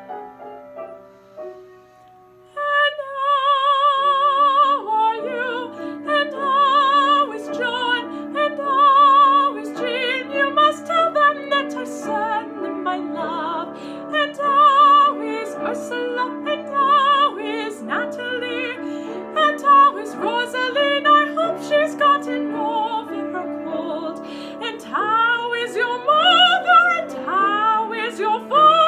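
Solo soprano singing an operatic aria with wide vibrato over piano accompaniment. The piano plays alone for the first couple of seconds before the voice comes in.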